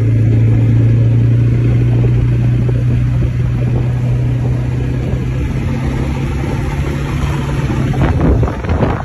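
Quad bike (ATV) engine running in a steady low drone while riding, with some uneven knocks and changes in engine pitch near the end.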